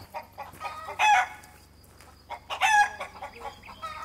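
Chickens calling: a loud call about a second in, then a longer call broken into several parts about two and a half seconds in, with softer clucks between.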